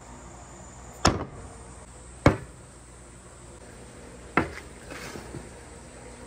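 Wooden blocks set down and knocked against a wooden pegboard tabletop and support post: three sharp wooden knocks, the middle one loudest, then a few lighter taps.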